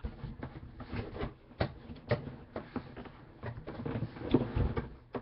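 Packaging being handled as a boxed replica football helmet is unpacked: irregular crinkling, clicks and knocks of cardboard and plastic wrap.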